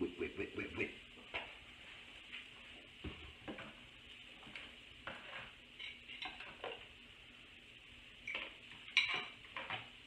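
Kitchen handling sounds: a quick run of clicks as a plastic food container is handled at the start, then scattered taps and knocks as eggs are cracked into the bowl, the loudest about nine seconds in.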